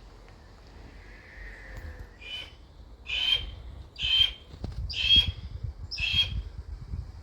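A bird squawking repeatedly: five short, harsh calls about a second apart, starting about two seconds in. A low rumble runs underneath in the second half.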